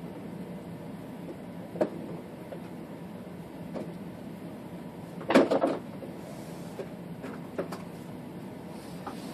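Handling noise: a few scattered knocks and clatters over a steady low hum, the loudest a short cluster of knocks about five seconds in.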